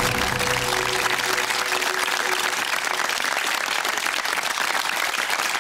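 Studio audience applauding steadily, with the last notes of the show's theme music fading out in the first couple of seconds.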